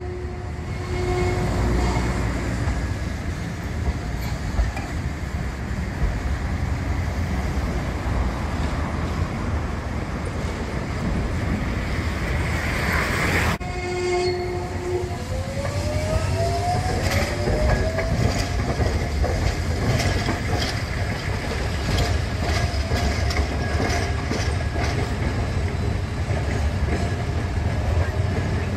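Street tram pulling away along street tracks, its motors whining and rising in pitch as it gathers speed, with wheels clicking over rail joints and crossings. A short steady tone sounds near the start and again about halfway through, over a constant low rumble.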